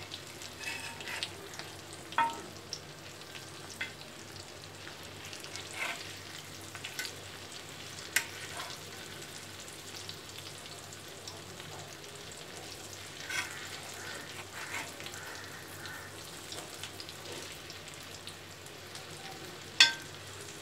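Masala-coated halved boiled eggs sizzling in shallow oil on a dosa tawa over a low flame, with a few sharp taps and scrapes of a metal spatula turning them; the sharpest tap comes near the end.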